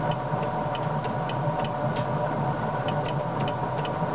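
Self-oscillating relay in a homemade electric fence circuit with a chainsaw ignition coil, clicking a few times a second over a steady hum. The clicks come unevenly: an extra capacitor in parallel has halved the relay's speed, and a bad contact makes it falter.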